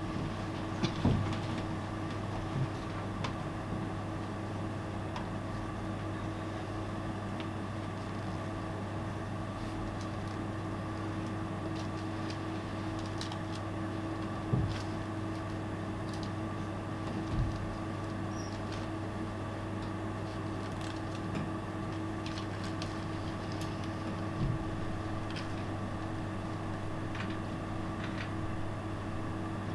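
A steady low hum with a few fixed tones over it, and a handful of soft thuds from movement on the stage, the clearest about a second in and around the middle.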